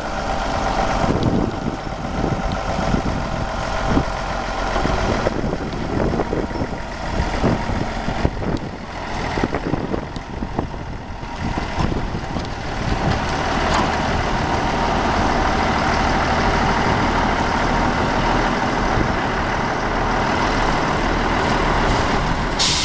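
Heavy Cummins diesel engine of a vintage Peterbilt logging truck running, uneven at first, then growing louder and steadier about halfway through. A brief hiss comes right at the end.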